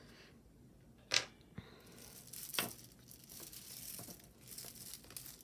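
Faint handling noises of small jewelry pieces being picked over: a sharp click about a second in, then soft crinkling with a few light clicks.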